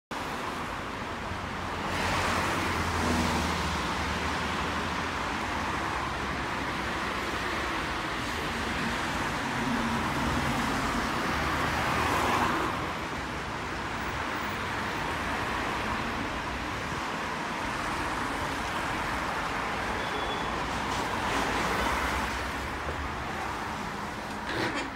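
Scania N230UD double-decker bus idling: the steady low rumble of its diesel engine. Over it, the hiss of traffic on the wet road swells up three times.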